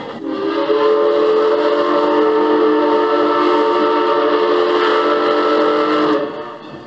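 Steam locomotive whistle, from ex-Rahway Valley 2-8-0 #15, blowing one long blast of about six seconds that sounds a chord of several notes at once and then cuts off. It is heard as an old vinyl record played back.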